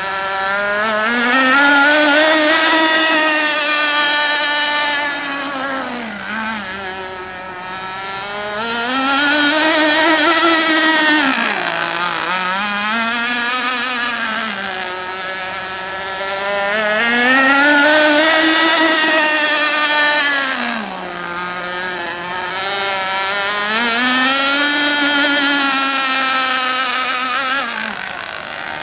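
Radio-controlled speedboat's engine running flat out, a high engine note with many overtones that rises and falls in pitch four times as the boat speeds along and turns.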